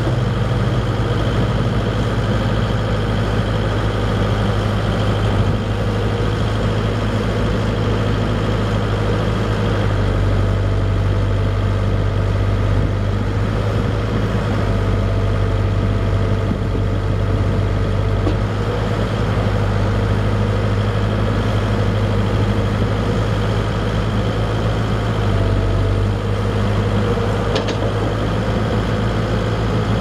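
Volvo BL70 backhoe's 4-litre four-cylinder diesel engine running steadily. Its low drone shifts a few times, at about a third of the way in, midway and near the end, as the backhoe arm is worked.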